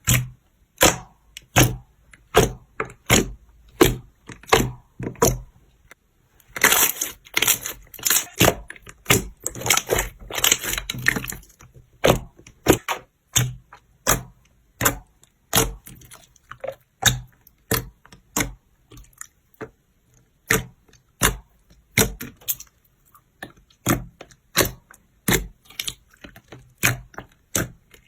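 Slime being squished and pressed by hand, giving sharp pops and clicks about twice a second, with a stretch of dense crackling in the middle.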